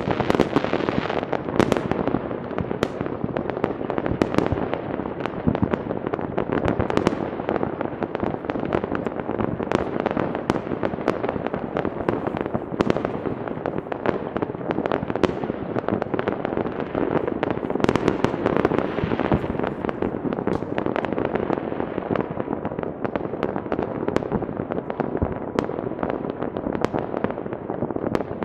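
Many fireworks going off at once across a town: an unbroken barrage of bangs and crackles from rockets and firecrackers, with no pause.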